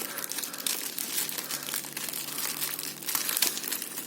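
Plastic packaging crinkling and crackling as it is handled, a dense run of irregular crackles.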